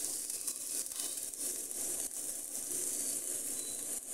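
Chopped onions and garlic-ginger paste frying in oil in a pan, a steady, even sizzle.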